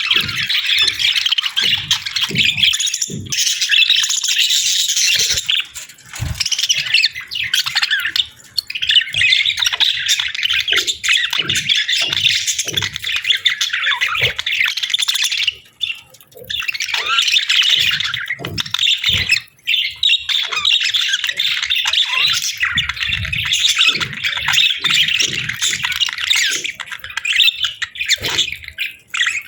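A pair of budgerigars chattering and chirping busily, a dense warble broken by a few short pauses. Occasional low thumps sound under it.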